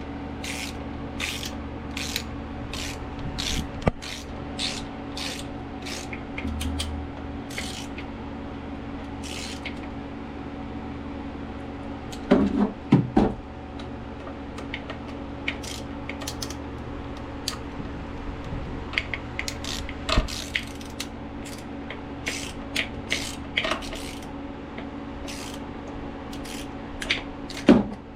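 Ratchet wrench clicking in repeated strokes while the nuts and fittings of a marine diesel's new raw water pump are tightened, with a few louder metal clanks of tools and parts about twelve seconds in and again near the end. A steady machinery hum runs underneath.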